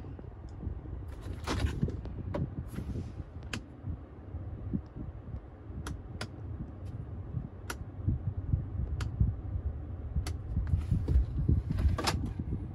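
Scattered sharp clicks from the pickup truck's interior controls and shifter being handled, over a low, uneven rumble of handling noise inside the cab.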